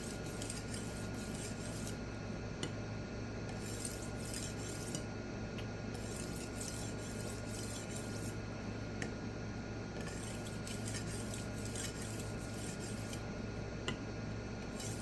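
Knife edge being stroked across a small pocket resin-bonded diamond sharpening stone: runs of faint, fine scraping strokes with short pauses between them, over a steady low hum.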